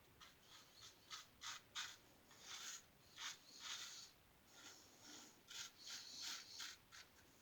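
Gem lather catcher safety razor with a single-edge Gem blade cutting stubble through lather: a run of short, faint scratchy strokes with brief pauses between them.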